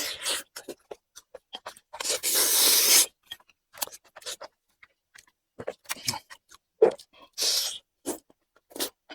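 Close-miked eating sounds: scattered wet clicks and crunches of chewing, with a loud scraping, crunchy stretch of about a second around two seconds in and a shorter one near the end.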